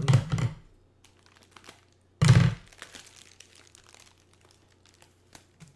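Clear plastic bag crinkling as it is unwrapped from a potted plant by hand, with two loud crinkles, one at the start and one about two seconds in, and soft crackles between.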